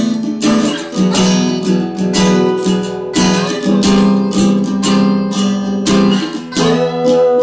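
Two acoustic guitars strumming chords in a steady rhythm, about two strokes a second, with a single long note held and ringing out near the end.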